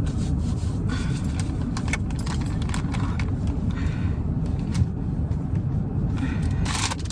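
Steady low hum of a car cabin, with light rustling and small clicks of things being handled and one sharper click a little past the middle.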